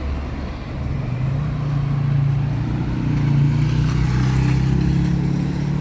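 Street traffic: a motor vehicle's engine running close by, growing louder about a second in and holding at a steady pitch over a low traffic rumble.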